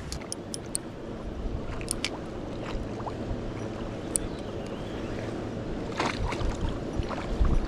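Steady rush of flowing river water with wind buffeting the microphone, a few small clicks scattered through it and a brief noisy burst about six seconds in.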